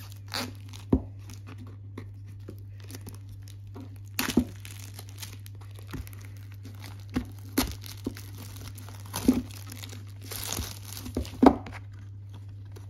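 Plastic shrink-wrap being torn and crinkled as it is pulled off a boxed set of canvases, with scattered knocks of the canvases and card sleeve on a table and a longer burst of crinkling about ten seconds in.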